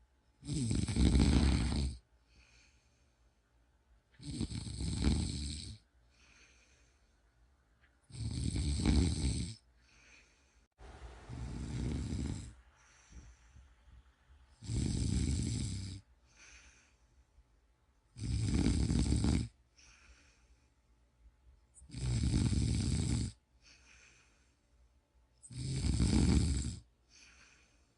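A sleeping person snoring in a slow, regular rhythm: a loud snore about every three and a half to four seconds, each lasting about a second and a half, with fainter breath sounds between snores.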